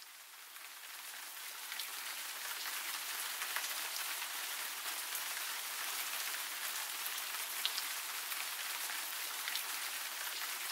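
Steady rain falling, with scattered drops ticking through it; it fades in from silence over the first two seconds or so.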